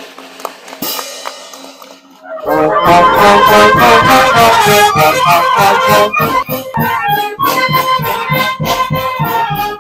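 Oaxacan village brass band (banda filarmónica) of trumpets, trombones and sousaphones strikes up about two and a half seconds in, playing loudly over a steady bass-drum and snare beat.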